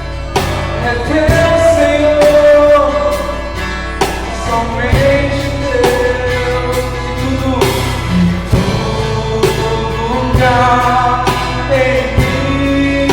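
Live worship song: a singer holding long sung notes over acoustic guitar and a drum kit keeping a steady beat with cymbal strokes, recorded through a phone's microphone.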